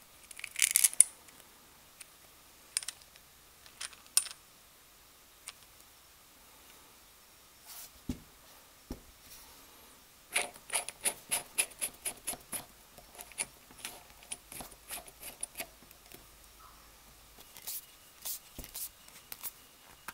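Small steel chuck parts of a Stanley 803 hand drill clicking and clinking as they are handled and fitted together: scattered light clicks, a quick run of rapid clicks about halfway through, and a few more near the end.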